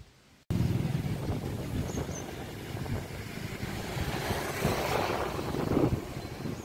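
Royal Enfield Interceptor 650's parallel-twin engine running on the move, with wind rushing over the microphone; the sound cuts in abruptly about half a second in.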